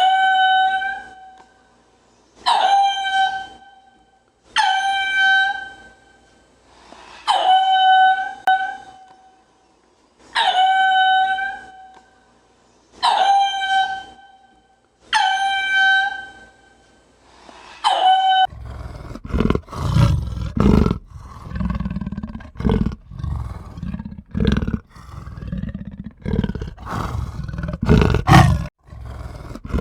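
An animal calling loudly seven times, each call about a second long and held on one steady pitch, spaced about two and a half seconds apart. About eighteen seconds in, the calls give way to a rapid run of loud, rough, low pulses.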